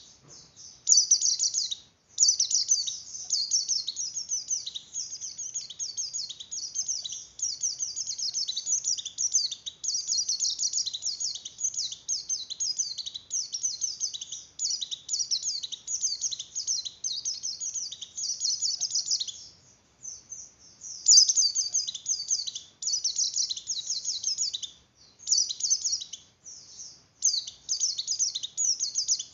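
A white-eye (pleci) in breeding condition singing a long, rapid, high twittering song almost without pause. The song breaks off briefly about two-thirds of the way through, then resumes.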